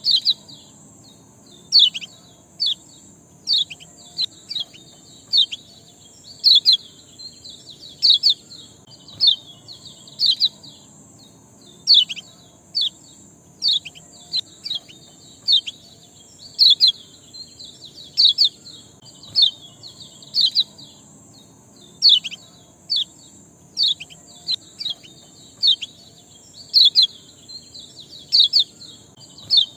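Repeated short, sharp bird chirps ('ciak' calls), many sweeping downward in pitch, coming one to three a second in uneven runs, with a steady high hiss underneath. This is a chirping track of the kind played as a lure to trigger caged songbirds into full song.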